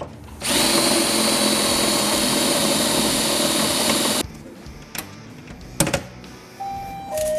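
An air-powered shop tool runs steadily with a hiss for about four seconds, then cuts off suddenly. Two sharp clicks follow.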